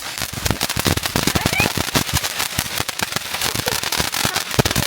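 Consumer fireworks going off in a rapid, unbroken run of sharp pops and crackles, many each second.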